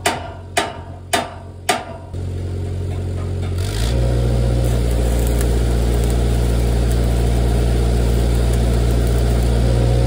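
About four sharp knocks of metal on steel, roughly half a second apart, then the engine of a Lincoln engine-driven welder on the welding rig runs steadily and steps up in speed a little under four seconds in, as a stick-welding arc is struck to tack new steel onto the grapple.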